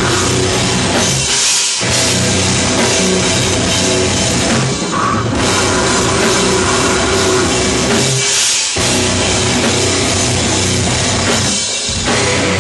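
Death metal band playing live: distorted guitars and bass over a drum kit. There are three short stop-breaks where the low end cuts out.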